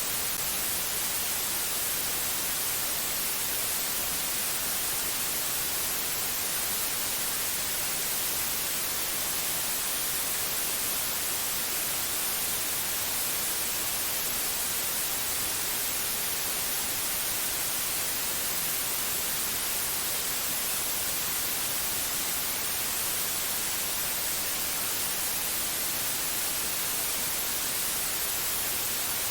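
Steady white noise: an even, unbroken hiss, strongest in the high end, that does not change.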